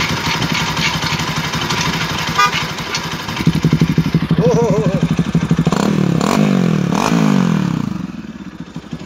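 Bajaj Pulsar NS200 single-cylinder engine idling, then revved up and down a few times from about three and a half seconds in, settling back near the end. The exhaust note is the modified one, with the brass plug taken out of a hole drilled in the exhaust to give a deeper sound.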